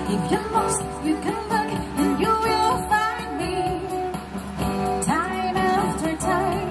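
A woman singing into a handheld microphone, amplified over instrumental accompaniment, her voice gliding between held notes.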